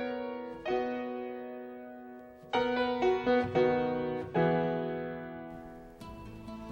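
Background music: piano notes and chords struck a few at a time, each left to ring and fade, with a soft sustained layer coming in near the end.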